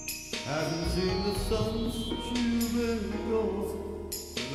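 A man singing into a handheld microphone over a recorded backing track; his voice comes in about half a second in, with a deep bass line under it.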